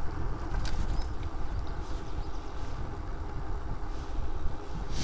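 Steady low road rumble and wind from a vehicle moving along a road, with a faint tick about two-thirds of a second in.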